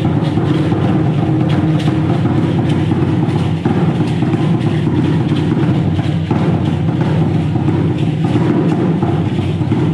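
Loud live drumming on large upright drums, struck continuously in a steady beat.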